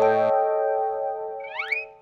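Cartoon background music: a held chord slowly fading out, with a short rising glide in pitch near the end.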